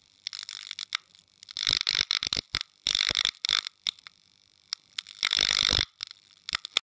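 Sound effects for an animated studio logo: crackling static with scattered sharp clicks, rising into three louder noisy swells about two, three and five and a half seconds in, then cutting off suddenly near the end.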